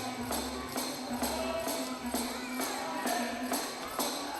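Background music with a steady beat and a shaken tambourine-like jingle on the beat, about two strikes a second.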